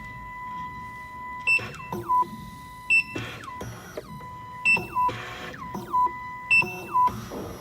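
Background electronic music with a steady repeating beat, over which a 2M2 Magic Tank automatic key cutting machine's motors whirr in short bursts, three times, as the machine runs its calibration.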